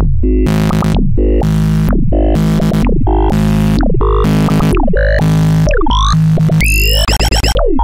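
Oscilloscope music: a synthesizer track whose stereo signal draws the shapes on the scope screen. It pulses about twice a second, each pulse sweeping down in pitch, and near the end gives way to fast rising and falling glides.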